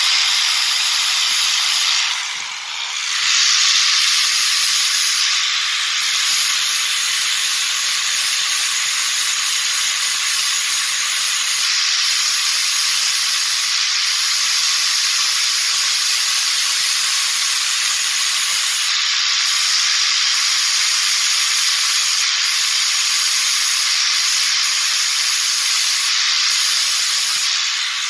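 Angle grinder with a flap disc grinding the weld bead off a welded corner of a 1.5 mm 304 stainless steel tabletop: a steady, loud grinding noise that eases off briefly about two seconds in.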